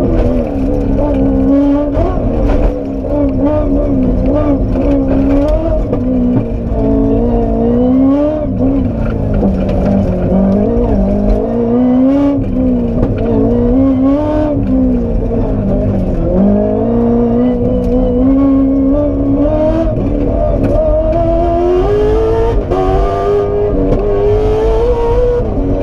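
Aston Martin Vantage rally car's engine heard from inside the cabin, revving hard under full load: its pitch climbs and drops over and over through gear changes and lifts for corners, with a few short dips where the revs fall away.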